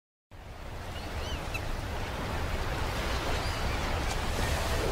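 A steady rushing wash of outdoor noise with a deep rumble, fading in from silence, with a few short bird chirps.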